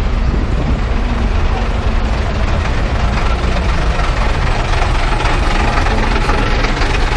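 Engine of a converted school bus idling close by: a steady low rumble.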